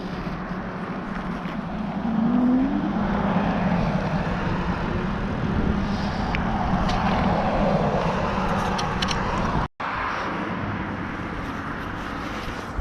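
Road traffic, cars going by on the road as a steady rushing, louder from about two seconds in, under a low steady hum. The sound cuts out for an instant near the end.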